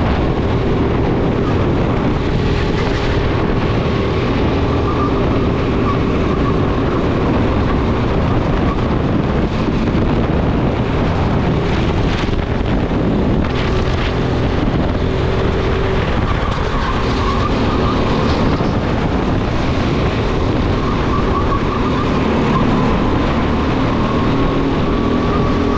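Go-kart running at racing speed, its motor note wavering up and down through the corners, with a few brief sharp noises about halfway through.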